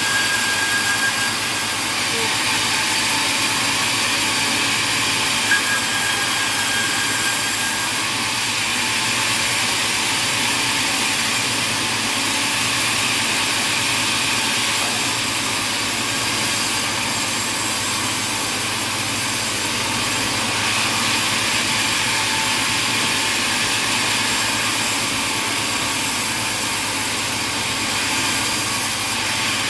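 Sawmill machinery running with a steady, even noise. A thin whine comes in near the start and again for a few seconds around six seconds in.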